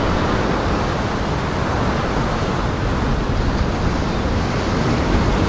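Waves breaking against a concrete pier, a steady wash of surf with no single crash standing out.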